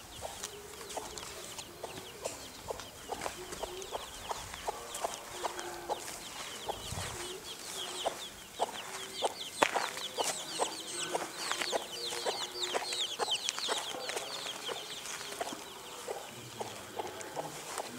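A brood hen clucking to her chicks, short calls repeated again and again, with the chicks peeping in quick, high, falling notes, thickest in the middle of the stretch.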